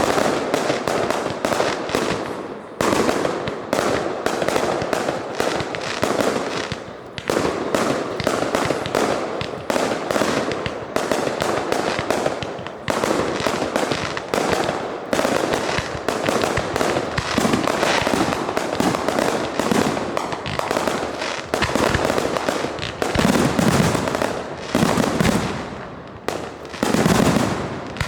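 Dense fireworks barrage: rapid overlapping bangs and crackling, many reports a second, with heavier booms near the end.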